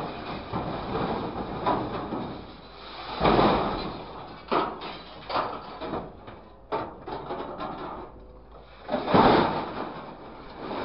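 Scrap metal clattering and scraping as an orange-peel grapple drops and drags tangled wire scrap into a truck's steel bin. The clatter swells loudest about three seconds in and again about nine seconds in, with scattered sharp clanks between.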